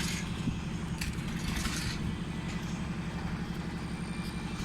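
Concrete mixer's engine running steadily with a fast, even low throb.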